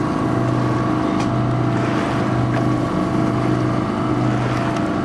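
Fishing boat's motor running steadily at slow trolling speed, a low drone that dips slightly about once a second.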